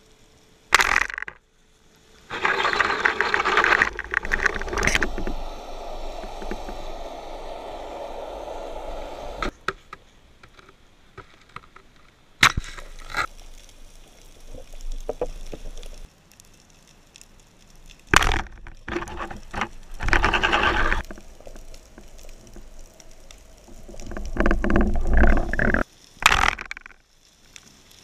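Water noise heard through an underwater camera during a spearfishing dive: repeated bursts of rushing, bubbling water, with a few sharp cracks, one of them about a second in.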